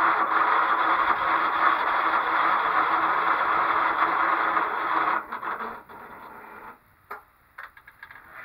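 Lawn mower's electric starter cranking for about five seconds without the engine catching, then winding down, followed by a few clicks. The speaker puts the failure down to a dead battery.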